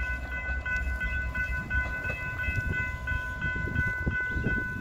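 Railroad grade-crossing bell ringing with steady high tones while the receding Norfolk Southern research train's low rumble fades out about two seconds in.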